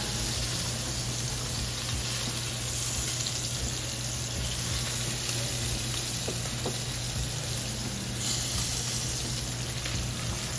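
Hot olive oil and short-rib drippings sizzling steadily in a cast iron Dutch oven after browning, with a faint tap or two of metal tongs on the pot. The sizzle swells briefly about eight seconds in.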